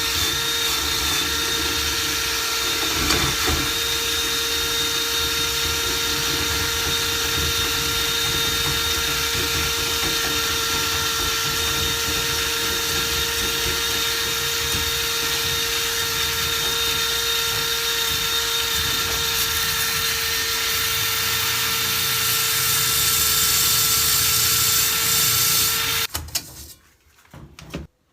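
Power drill running steadily, spinning a rotary cleaning brush through a dryer vent duct, with a constant motor whine over the rasp of the brush; it stops about 26 seconds in.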